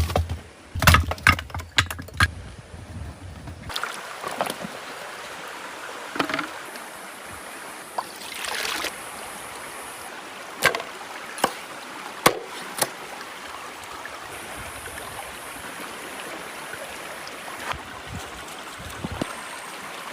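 Steady rush of flowing river water, with scattered sharp clicks and knocks. The opening few seconds instead hold a quick run of knocks over a low hum, which cuts off abruptly before the water sound.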